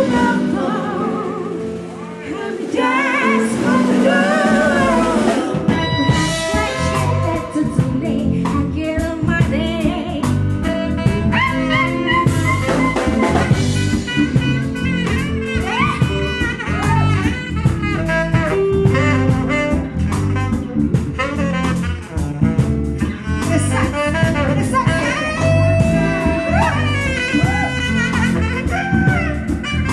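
Music with a steady beat, a singing voice and horns, in a jazz or blues style.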